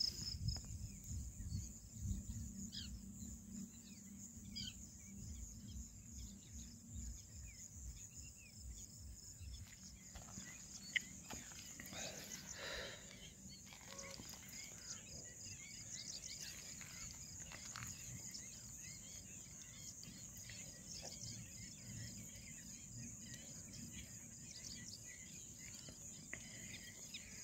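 Steady high-pitched chirring of crickets, with a few faint bird chirps. A low rumble sits under it for the first several seconds.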